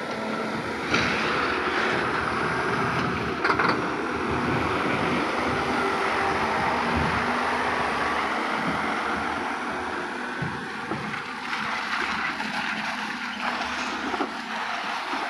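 Diesel engines of a material-handling crane and heavy lorries running steadily, with two short knocks about one and three and a half seconds in.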